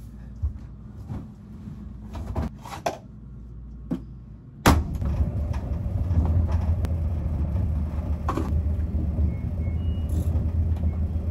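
Laundry being handled at a front-loading washer, with scattered knocks and clicks. About five seconds in, a steady low machine hum starts suddenly and carries on.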